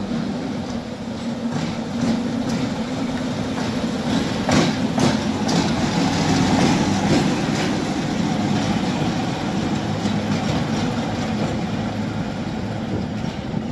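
ChME3 shunting diesel locomotive running past, its six-cylinder diesel engine droning steadily, with a run of sharp wheel clicks over the rails around five seconds in.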